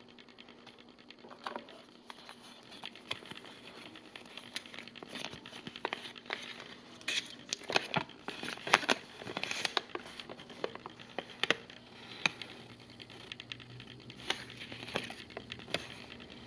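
A folded paper instruction leaflet being handled and unfolded by hand: paper rustling and crinkling in a run of sharp crackles, densest and loudest around the middle.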